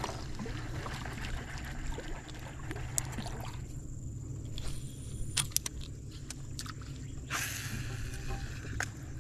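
Fishing with a popper lure on an ultralight spinning rod: a few sharp clicks and a short rushing, splashy burst about seven seconds in, over a steady low rumble.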